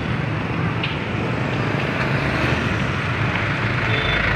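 Steady street traffic noise, mainly motorbike engines running close by, with a deeper rumble coming in near the end.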